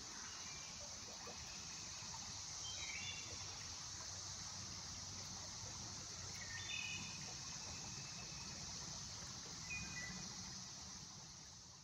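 Woodland ambience: a steady high-pitched insect chorus, with short chirping bird calls about three seconds in, about seven seconds in and near the end.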